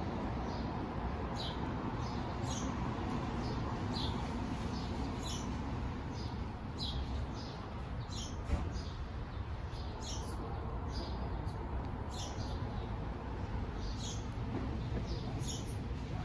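Short, high-pitched chirps from a small animal, each dropping slightly in pitch and repeated about once a second, over a steady low background rumble.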